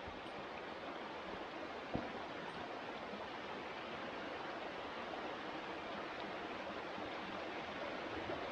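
A small creek running steadily over rocks, with a single thump about two seconds in.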